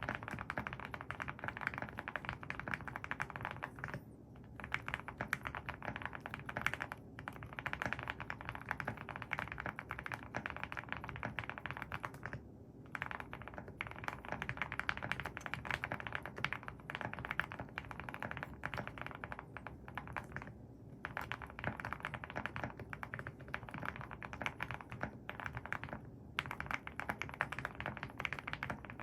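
Typing on a Link65 mechanical keyboard with Gateron Deep Ink switches on an FR4 plate: fast, continuous runs of keystrokes broken by brief pauses about four, seven, twelve and a half, twenty-one and twenty-six seconds in.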